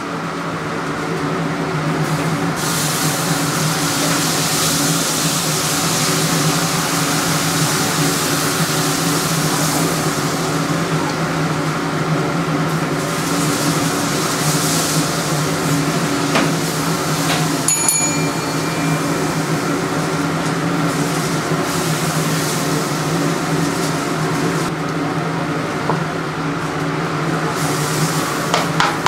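Steady machine hum of a restaurant kitchen, with stretches of sizzling and hissing from the hot dosa griddle as rava dosa cooks. A brief high tone sounds a little past halfway.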